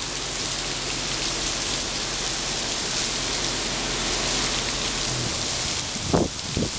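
Heavy rain pouring steadily onto a concrete forecourt, an even rushing hiss. A brief, louder sound stands out about six seconds in.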